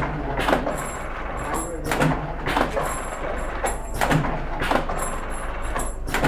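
Vertical form-fill-seal pouch packing machine running, clacking in a steady rhythm of about two strokes a second as it fills and seals a strip of spice pouches. Short high-pitched tones come and go between the strokes.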